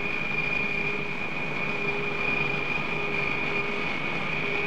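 Turboprop airliner's engines running with a steady high whine over an even rumble as the plane moves along the runway.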